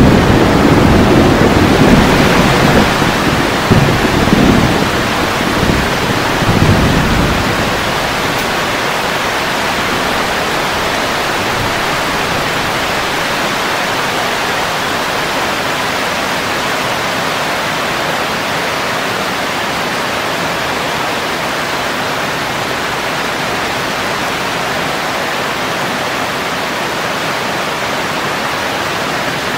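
Steady rain falling. The low rumble of thunder dies away over the first several seconds, then only the even hiss of the rain remains.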